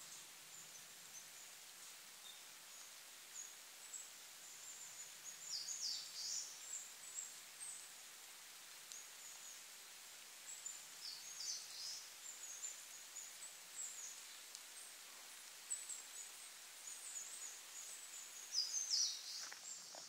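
Small songbirds calling in the forest canopy: thin, high, short calls repeating throughout, with three louder clusters of quick falling notes, the loudest near the end.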